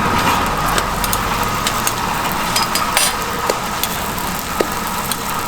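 Steady motor hum with a thin whine, scattered light clicks over it, and faint sizzling from a hotteok griddle.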